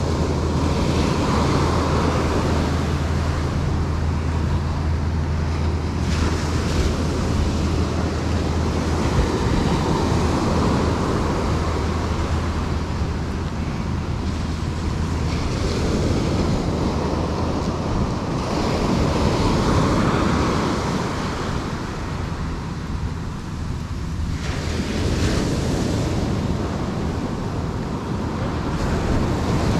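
Ocean surf breaking and washing up the beach, swelling and easing every several seconds, with wind rumbling on the microphone, strongest in the first several seconds.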